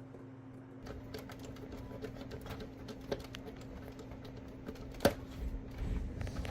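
Scattered light clicks and taps of hands working with small parts, over a steady low hum, with one sharper click about five seconds in.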